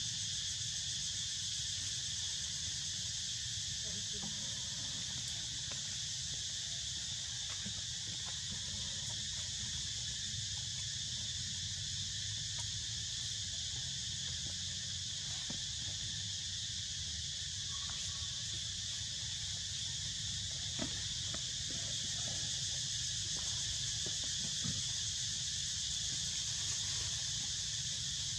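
Steady, high-pitched chorus of insects droning without a break, over a low background rumble.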